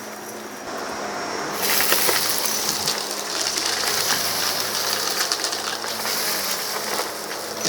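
Vacuum cleaner running with a close microphone, turning louder about one and a half seconds in, with steady crackling and rattling as it picks up gritty debris from a rug.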